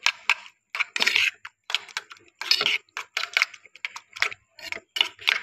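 A metal utensil beating raw eggs in a steel bowl, clinking and scraping against the bowl in quick, irregular strokes.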